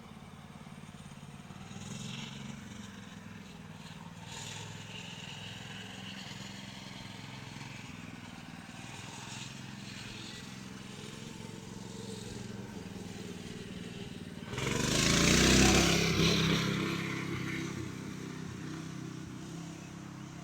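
An engine running steadily, growing much louder for about two seconds near the end before settling back.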